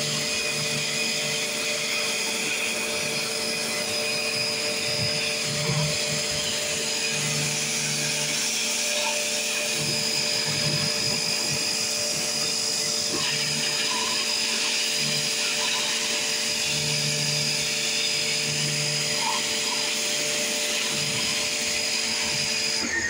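Pressure washer running steadily, its jet of water blasting grime and mold off a concrete wall: a constant hiss of spray with a steady machine whine. It cuts off abruptly at the very end.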